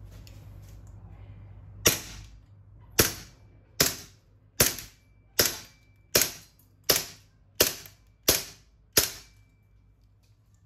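WE Beretta M9 gas blowback airsoft pistol running on green gas, firing about ten single shots at an even pace of roughly one every three-quarters of a second, each a sharp crack. The string starts about two seconds in and ends about a second before the end.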